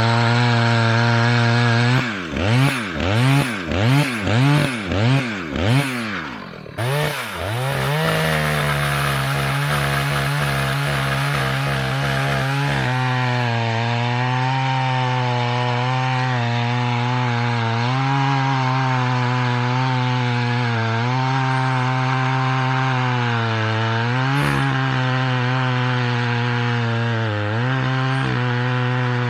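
Vintage two-stroke chainsaw running at high revs and cutting wood. A couple of seconds in, it is revved up and down about seven times in quick succession. It then settles into a steady high run, with brief dips in pitch as the chain bites.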